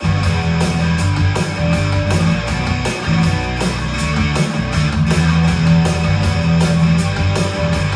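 Rock music with guitar, bass and drums, played through a Bose speaker for a sound and bass test. It starts abruptly, with a steady beat of about four drum hits a second and heavy bass.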